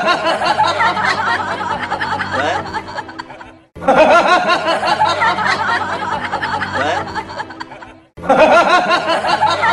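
Looped snickering-laughter sound effect over background music, repeating about every four and a half seconds. Each repeat starts suddenly and fades out.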